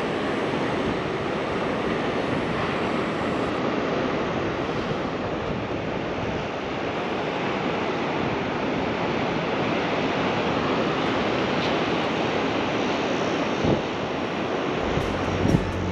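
Ocean surf breaking on a sandy beach, a steady wash of waves, with some wind on the microphone.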